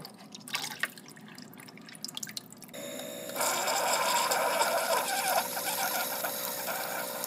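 Single-serve coffee brewer making a cup: a few light clicks and knocks, then about three seconds in the machine starts a steady hum. Soon after, coffee streams into the mug with a loud, even hiss until it stops abruptly.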